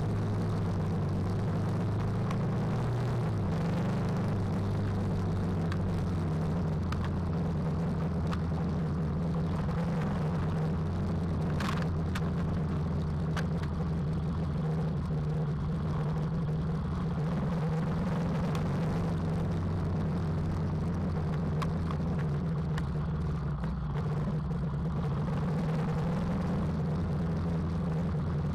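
KTM 390 Adventure's single-cylinder engine running steadily on the move, its note dropping a little about three seconds in. A single brief click comes near the middle.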